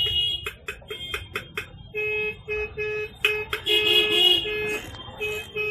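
A vehicle horn honking in a quick series of short beeps and a few longer blasts.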